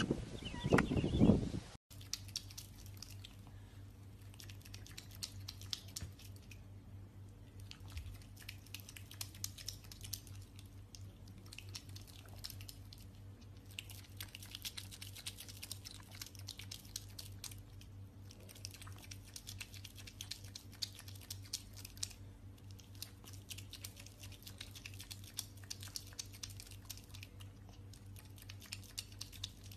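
A pet otter chewing and crunching dry kibble with a dense run of fine, crisp clicks, over a steady low hum. Before that, a loud goat call is cut off abruptly about two seconds in.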